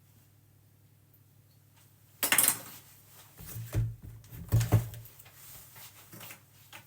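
Kitchen items handled on a worktop while measuring cake ingredients: a quiet start, then a run of clatters and knocks, a few with a dull thud.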